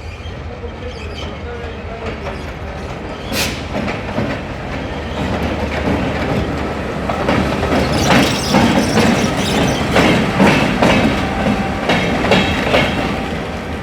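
A train hauled by a G22 diesel locomotive passing close by, its running noise growing louder. From about seven seconds in, the wheels clack rhythmically over the rail joints.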